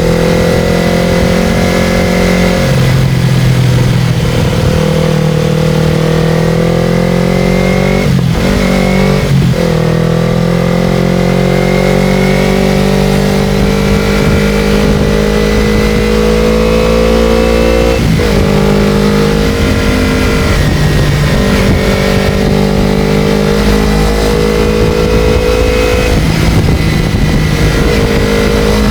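Motorcycle engine running under way, its pitch climbing slowly as it pulls, with brief breaks where the pitch drops and climbs again about eight, nine and eighteen seconds in, as on gear changes.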